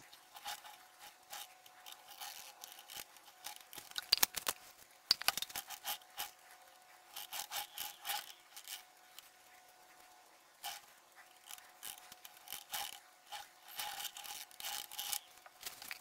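Paintbrush scrubbing and dabbing thickened liquid silicone rubber over a sculpted mould, in bursts of short scratchy strokes, working out trapped air bubbles. A few sharp clicks come about four to five seconds in.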